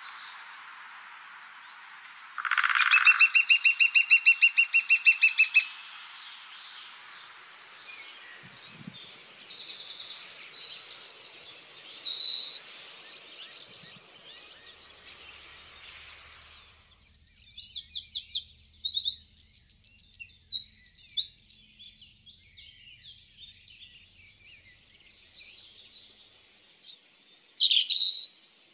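Songbirds singing in turn. A few seconds in, a bird gives a fast run of repeated notes. Then a yellowhammer sings phrases of quick repeated high notes, each ending on a lower note. Next a Eurasian wren sings a loud, rapid trilling song, and near the end a European robin sings a short burst of varied high notes.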